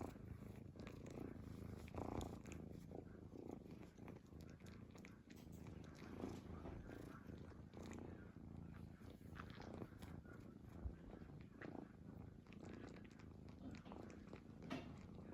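Domestic cat snoring quietly in its sleep, a low rumbling breath swelling about every two seconds.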